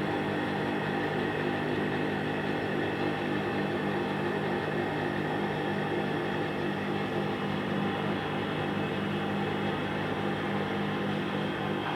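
Typical industrial sewing machine running steadily, its motor humming under the rapid stitching of the needle mechanism.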